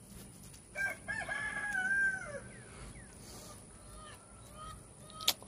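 A rooster crowing once: a drawn-out call about a second in that falls away at the end. Fainter short bird calls follow, and there is a single sharp click near the end.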